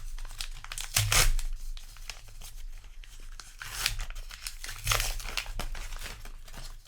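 Paper trading-card booster pack wrapper being torn open and crumpled by hand, in irregular rips and rustles with louder tears about a second in and twice around four to five seconds in.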